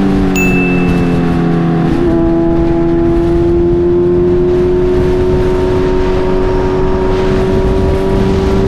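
Motorcycle engine running steadily at highway cruising speed, under wind and road noise. The engine note changes about two seconds in, then slowly rises.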